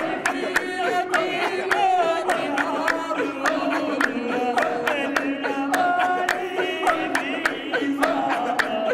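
A crowd of men chanting together in a Sufi dhikr, many voices overlapping in a hall. The chant is kept in time by steady hand claps, about three a second.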